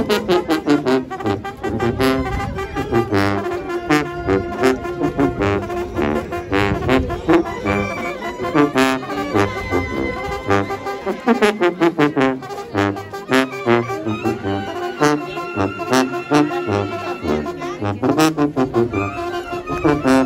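Brass band playing, with sousaphone bass notes and trumpet and trombone melody over regular drum hits.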